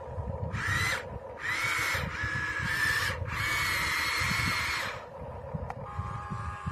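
Small electric gear motor of a toy RC construction vehicle whining in four short runs, its pitch shifting a little from run to run, the last one longest.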